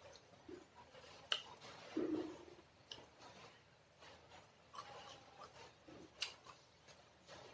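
Eating sounds from a mouthful of crunchy green mango salad: a few sharp, separate crunches and clicks, with soft chewing between them.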